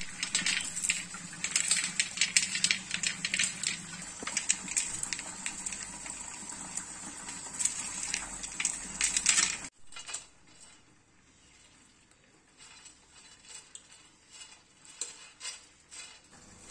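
Roasted peanuts rubbed by hand on a steel plate to shed their skins: dense clicking and rattling of nuts against the metal, which drops off sharply about ten seconds in to a much quieter stretch of occasional faint ticks.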